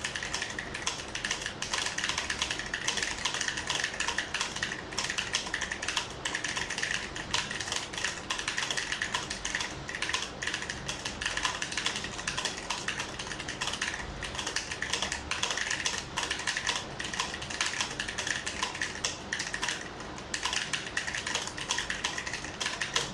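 Fast continuous typing on a Cosmic Byte mechanical keyboard with clicky blue switches, a rapid stream of sharp key clicks with a few brief pauses, stopping abruptly at the end.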